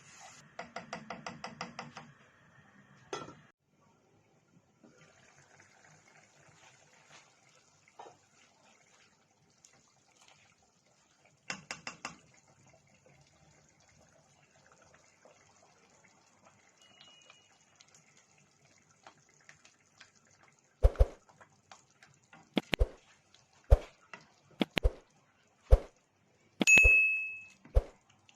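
Kitchen cookware and utensils being handled. A quick run of light clicks comes first, then a long pause, then about seven sharp knocks spaced about a second apart, one of them ringing briefly like metal.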